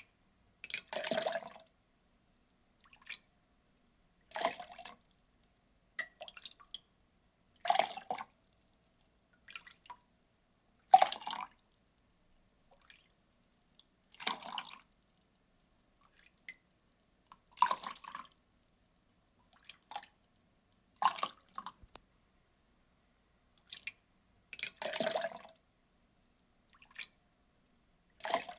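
Water being poured in short splashes, about one every three seconds, each lasting under a second, with small drips and trickles between them.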